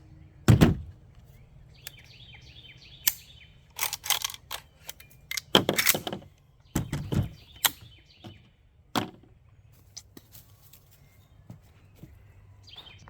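Birds chirping in the background, with a sharp thud about half a second in and a string of shorter knocks and rustles over the next several seconds.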